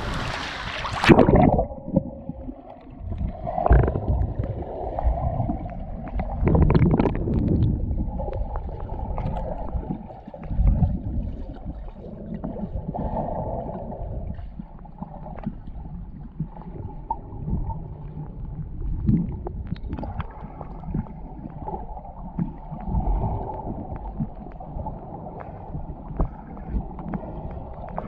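Water gurgling and sloshing with irregular dull knocks. About a second in, the sound goes muffled and dull, as heard through a camera that has gone underwater.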